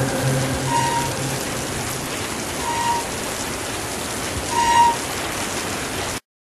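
Steady rain in the soundtrack, with held low musical notes fading out in the first second or so and three short high tones about two seconds apart; the sound cuts off suddenly near the end.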